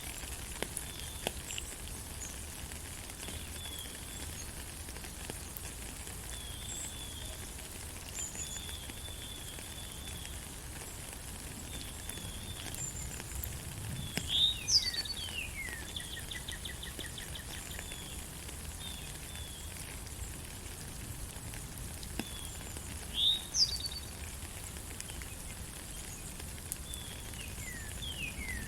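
Steady rain pattering in a forest while birds sing: scattered short chirps and whistles, and twice a louder call of falling notes ending in a fast trill, about midway and again later.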